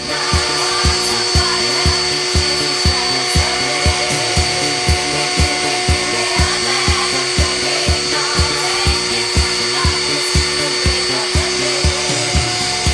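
Hobby CNC machine's spindle running and cutting, a steady whine over a grinding, rasping noise. Music with a steady beat of about two thumps a second plays throughout.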